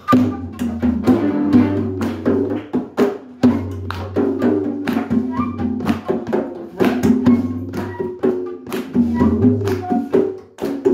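Live band playing an instrumental passage: quick, sharp hand-drum strikes over a low steady bass and short melodic notes from keyboard or wind instruments.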